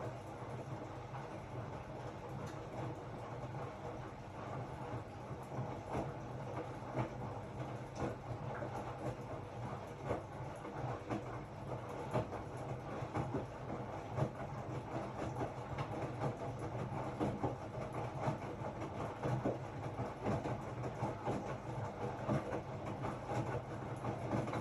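Hotpoint-Ariston RSG 825 J washing machine running: a steady low motor hum with irregular knocking and clatter from the turning drum and laundry, dropping away at the very end.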